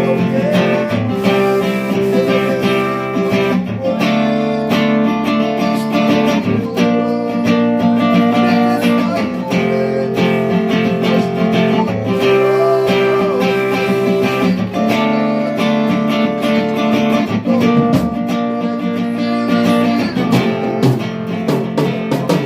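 Guitar music: a guitar strumming held chords that change every second or two.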